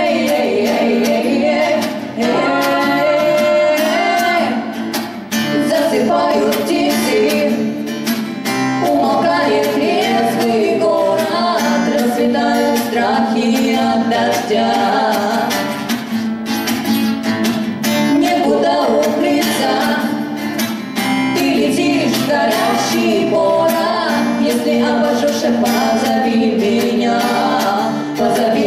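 A live song: female voices singing into microphones over a strummed acoustic guitar.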